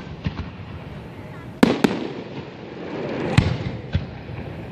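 Aerial firework shells bursting overhead. Two sharp bangs come close together about a second and a half in, then another a couple of seconds later and a smaller one soon after, each trailing off in a rolling rumble.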